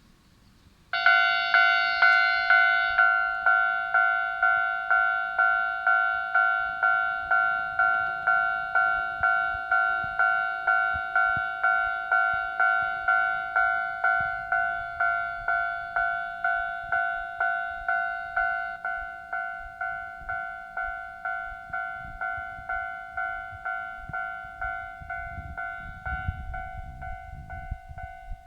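Japanese railway level-crossing warning bell starting up about a second in: an electronic ding tone struck over and over at a steady pace of just under two a second, signalling that a train is approaching. A low rumble joins it near the end.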